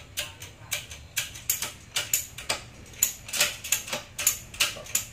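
Metal hand tool clicking on a motorcycle engine during wrenching, a fairly even series of sharp metallic clicks at about four a second.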